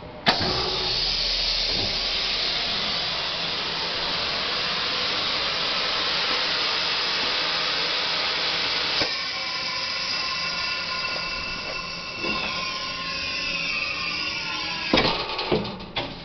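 Macpi sublimation heat transfer press working: a sharp click, then a loud steady hiss for about nine seconds. The hiss gives way to a machine whir with falling tones as a printing table shuttles on its rails, ending in a few clunks.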